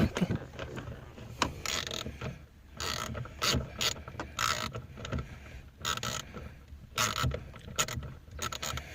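Ratchet wrench clicking in short, irregular strokes as it turns out the 10mm bolts holding a steering-wheel airbag.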